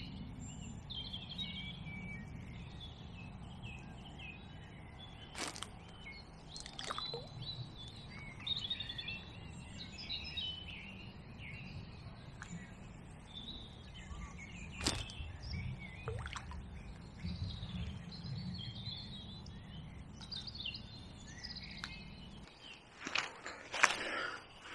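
Several birds singing and chirping over a low steady rumble that stops shortly before the end, with a few sharp clicks from fishing tackle being handled while red worms are put onto a maggot clip.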